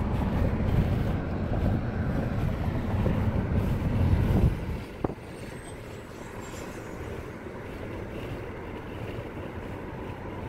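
Rumbling noise of a moving vehicle, which drops off sharply to a quieter steady hum about four and a half seconds in, with one sharp click just after.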